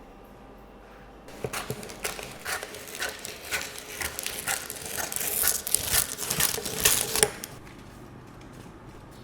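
Crisp crust of a freshly baked sourdough baguette crackling and crunching: a quick run of sharp crackles lasting about six seconds.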